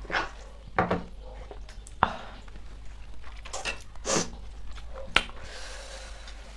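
Noodles being slurped off a fork, with a few sharp clinks and knocks of tableware against the plates and table.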